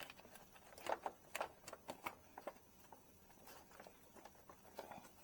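Faint scattered clicks and taps of plastic parts being handled as the bulb's protective shield is pressed back onto the back of a headlight housing.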